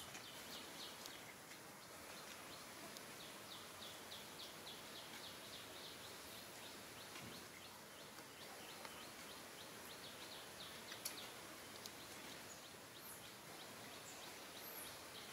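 Faint outdoor ambience: a steady low hiss with a rapid run of faint, high, short chirps, about four a second, and one or two isolated ticks near the end.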